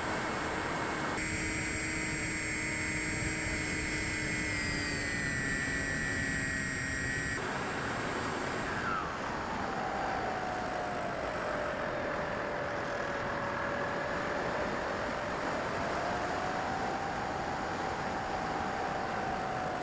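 Electric motor and propeller of a Bixler 3 foam model plane whining in flight over a steady rush of air noise. The whine's pitch slides as the throttle changes, shifts suddenly about seven seconds in, then falls steeply a couple of seconds later and wavers up and down.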